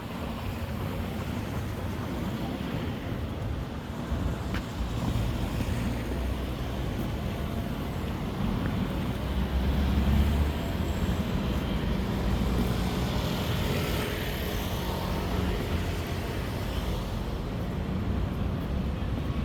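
City street traffic: motor vehicles running and passing, a steady low rumble that swells about halfway through.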